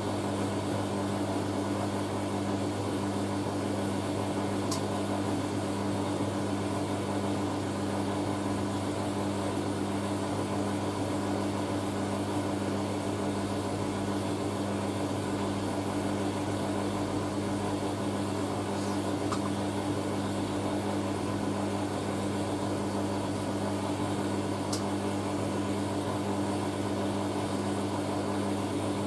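Hoover A3060 Electronic 1100 washing machine running with a steady, even hum as a spin begins slowly, the drum held back by the large amount of water being extracted.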